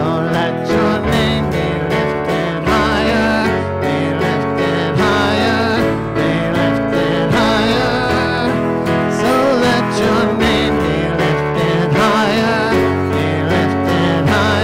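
Live worship song: a voice singing to acoustic guitar and keyboard accompaniment.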